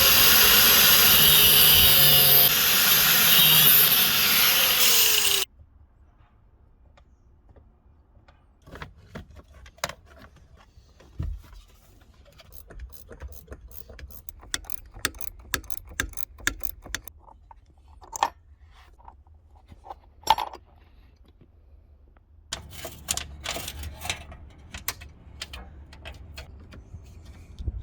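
A power tool runs loudly, its pitch bending slightly, then cuts off suddenly about five seconds in. Scattered light clicks and knocks follow, with a busier patch of clicking near the end.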